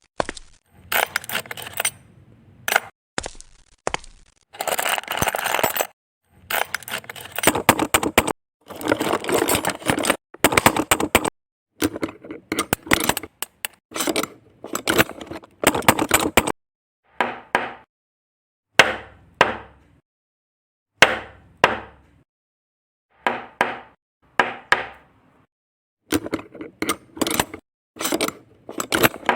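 Plastic building bricks clicking, snapping and clattering in short bursts, each broken off by a silent gap; near the middle come several single sharp clicks that ring briefly.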